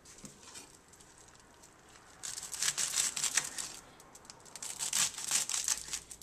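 Kitchen knife chopping through fresh celery leaves and stems: a quick run of crisp, crunchy cuts starting about two seconds in, a short pause, then another run near the end.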